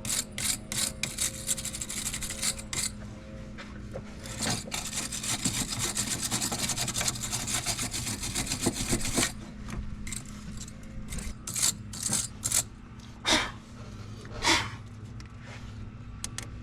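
A wire battery-terminal cleaning brush scraping and scrubbing corrosion off a car battery's post and terminal clamp, the buildup behind a click-but-no-start. It makes quick rasping strokes, then a steady stretch of scrubbing, then a few separate strokes near the end.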